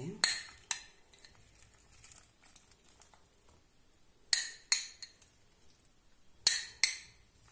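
A metal spoon clinks against a glass bowl in three pairs of sharp taps: one pair right at the start, one about four seconds in and one near the end.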